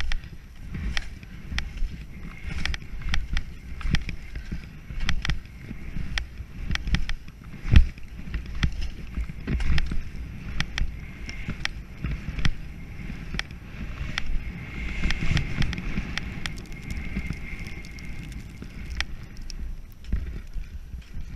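Head alpine skis sliding and scraping over snow on a downhill run, a steady hiss that grows stronger about three quarters of the way through. A low wind rumble sits on the microphone, and sharp clicks and knocks are scattered throughout.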